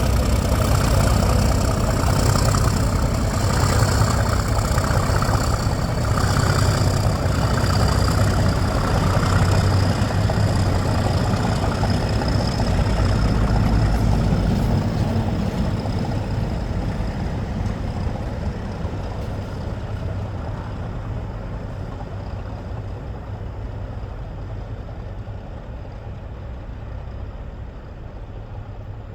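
Class 37 diesel-electric locomotive, its English Electric V12 engine running under power with a high whistle above the engine note, loud at first and then fading steadily over the second half as it draws away.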